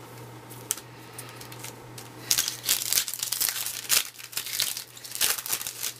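A 2012 Topps Opening Day baseball card pack wrapper being torn open and crinkled, in irregular bursts of rustling through the second half.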